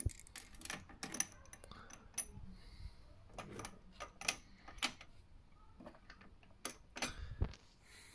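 Irregular clicks and light metallic taps of a be quiet! Dark Rock Pro TR4 CPU cooler and its mounting hardware being handled and fitted onto the server board's socket, with a duller knock right at the start and another near the end.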